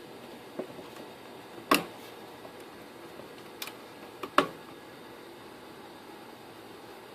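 Handling noises: a few light clicks and two sharper knocks, the second about three seconds after the first, over a faint steady hum.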